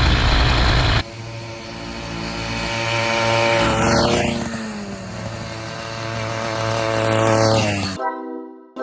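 Small two-stroke motorized-bicycle engine riding past twice, its buzz swelling and fading each time. A loud rushing noise fills the first second before a sudden cut, and music begins near the end.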